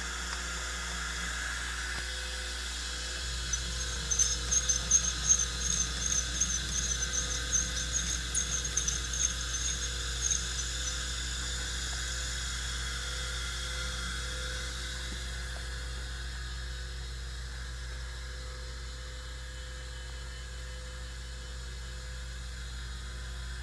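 Surface grinder running with a steady electric motor hum. From about four seconds in, a run of rapid high-pitched squeaks lasts roughly six seconds, the loudest sound here.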